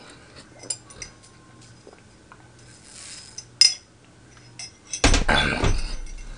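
A drink being sipped from a tall glass through a metal straw: small clicks, a sharp ringing clink of the straw or glass about three and a half seconds in, then a louder clatter lasting about a second as the glass is put down.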